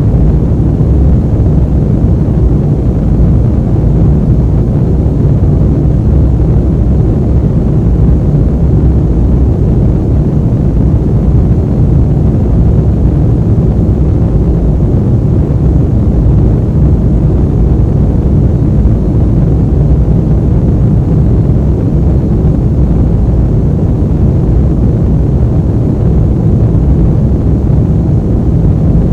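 Airplane ambient noise: a loud, steady low rumble with no changes or distinct events.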